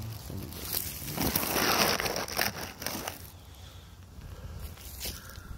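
Dry fallen leaves rustling and crunching close to the microphone, a crinkly crackle that swells about a second in and is loudest for the next two seconds, then thins to a few scattered crackles.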